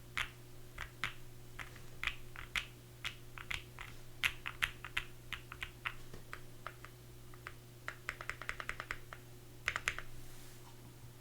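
Typing on a Keychron Q1 mechanical keyboard with an aluminium plate, Kiwi tactile switches lubed with Krytox 205g0, Durock V2 stabilizers, and foam and tape mods. Keystrokes come at an uneven pace, with a quick run about eight seconds in and a last flurry near ten seconds, then stop.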